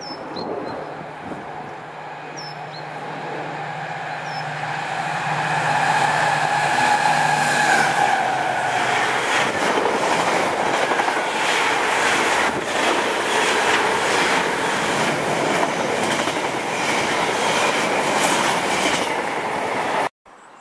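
Freightliner Class 70 diesel locomotive approaching and passing with an intermodal container train. The engine note grows louder over the first several seconds and fades as the locomotive goes by about eight seconds in. Then the container wagons clatter past over the rail joints for about ten seconds, until the sound cuts off suddenly just before the end.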